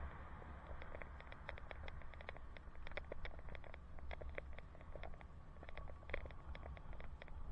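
Wind buffeting a helmet camera's microphone on a moving bicycle, a steady low rumble, with many small irregular clicks and rattles.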